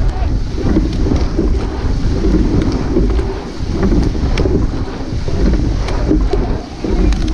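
Wind buffeting the microphone, a loud, rumbling noise with a few faint clicks.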